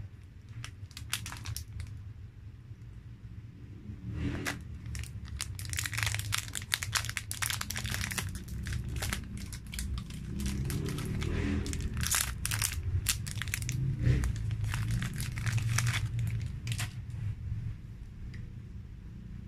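Plastic snack wrapper of a Fudgee Barr cake bar crinkled and torn open by hand: a few crackles about a second in, then dense crinkling from about four seconds in until near the end, over a steady low hum.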